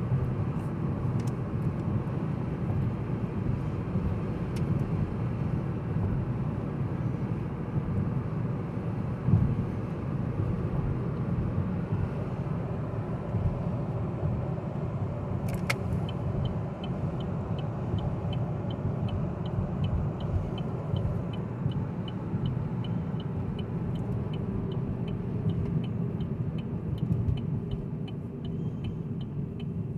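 Cabin noise of a 2017 Chevy Cruze diesel cruising at about 60 mph: a steady tyre and road rumble. Just past halfway there is a single click, and then a regular light ticking, a few ticks a second, runs on to the end.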